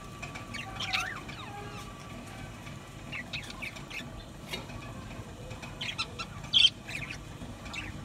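A flock of budgerigars chattering: short chirps and squawks scattered throughout, with one louder squawk about six and a half seconds in.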